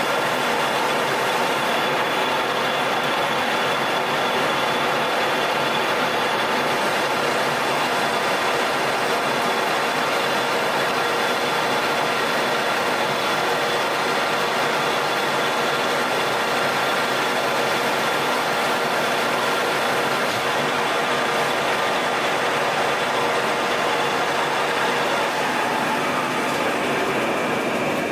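Colchester Master 2500 lathe running with a steady gear whine as a carbide insert turns down a 4140 steel shaft.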